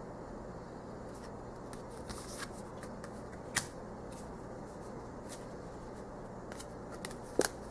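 Tarot cards being handled: cards sliding and rubbing against each other as one is set down and the next pulled from the deck. There is a sharp click about three and a half seconds in and a louder snap near the end.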